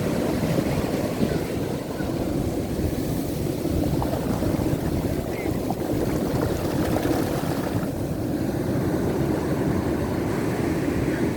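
Ocean surf washing onto a beach in a steady rush, with the waves running strong at high tide. Wind buffets the microphone.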